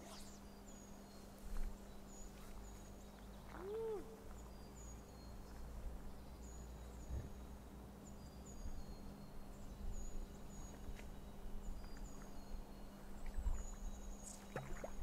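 Small birds chirping repeatedly in short, high, falling notes, with a single lower rising-and-falling call about four seconds in, over a steady low hum and faint low rumble.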